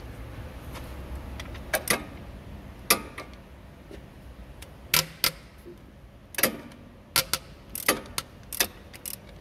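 Socket ratchet wrench clicking in short, irregular bursts as it turns a bolt, with a few metallic tool clinks; some clicks come in quick pairs.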